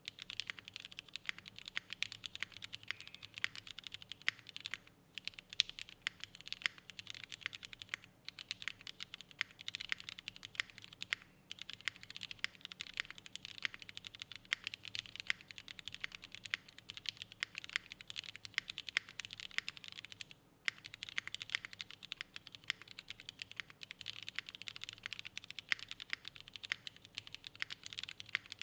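Fast, continuous typing on a Monsgeek M5 mechanical keyboard with linear Cherry MX Black switches, an aluminium plate and GMK keycaps, broken by a few brief pauses.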